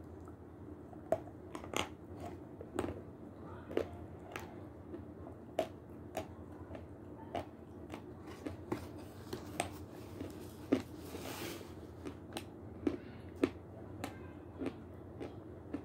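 Close-up mouth sounds of a person eating spoonfuls of soft yogurt: irregular wet clicks and lip smacks, about one or two a second, over a low steady hum, with a brief rush of noise about eleven seconds in.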